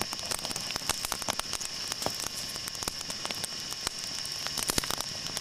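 Campfire of split black locust crackling, with irregular sharp pops and snaps over a low steady hiss of the burning wood.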